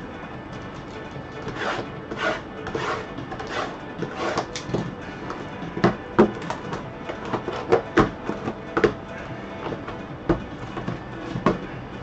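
Cardboard trading-card hobby boxes being handled and set down on a table: rustling and sliding in the first few seconds, then a string of sharper knocks as the boxes are stacked, over quiet background music.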